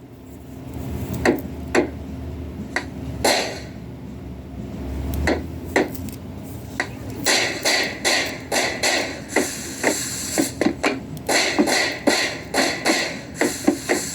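Percussive bangs and knocks: a few scattered hits at first, then from about halfway a fast, busy run of clattering hits.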